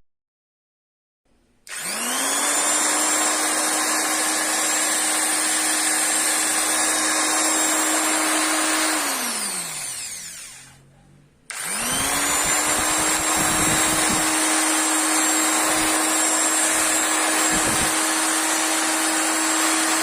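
Electric pistol-grip drill spinning up a little over a second in and running with a steady whine, then winding down to a stop with falling pitch about ten seconds in. After a pause of about a second it starts again and runs steadily to the end.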